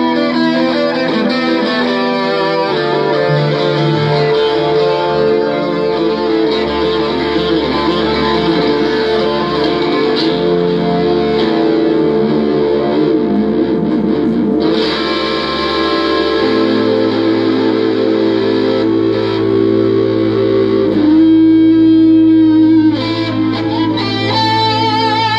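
Live jazz-rock band music: an electric guitar through effects plays long sustained notes over held keyboard and bass tones. A new low bass note comes in about two-thirds of the way through, and the music swells louder for a couple of seconds near the end.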